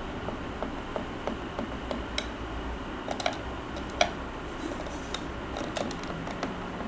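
Screwdriver driving screws into the plastic case of a set-top box: irregular light clicks and ticks, with one sharper click about four seconds in, over a low steady hum.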